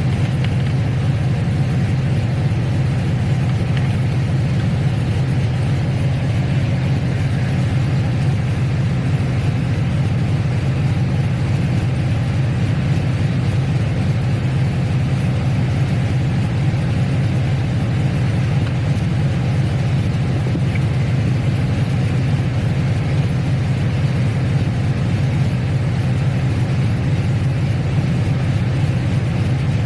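Chevrolet Silverado's LS V8 idling steadily, with its aftermarket nine-blade electric radiator fans running at speed.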